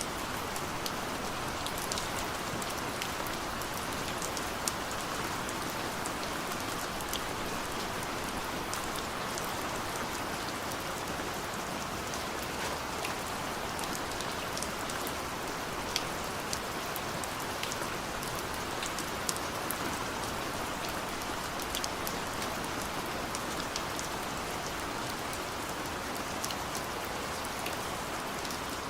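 Steady rain falling, with a constant hiss and many individual drops ticking sharply on a nearby surface.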